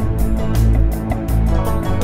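Music with a steady beat and heavy bass.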